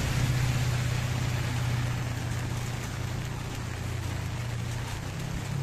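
Motorcycle engine running steadily in heavy rain, with the hiss of rain on the wet road.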